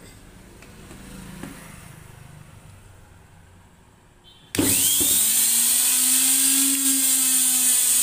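IFB washing machine's brushed universal motor (carbon brushes on an armature), fed straight from the mains without its speed-control board, switched on about halfway through and spinning up with a rising whine that settles into a loud, steady run at full speed.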